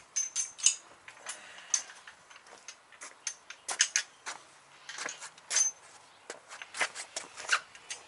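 Irregular sharp clicks and taps, a few with a brief high metallic ring: small steel suspension hardware (washers, nuts, bolts) being picked up and knocked together.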